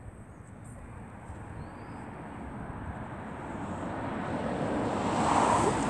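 A car approaching along the road, its tyre and engine noise growing steadily louder until it is close near the end. No horn is heard.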